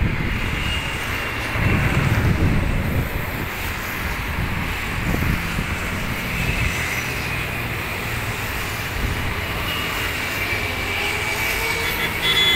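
Distant jet engines of a Boeing 777 airliner running at low taxi thrust: a steady rumble with a faint high whine. The rumble swells about two seconds in, mixed with wind and traffic noise.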